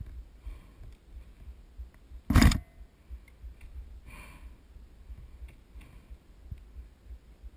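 A single short, loud bang or knock a little over two seconds in, over low rumbling and faint rustling movement noise.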